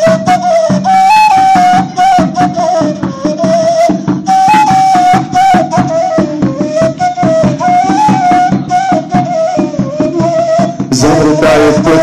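Instrumental break on a homemade plastic-pipe flute, which plays a wavering melody over fast rattling percussion. Near the end more parts join and the music fills out.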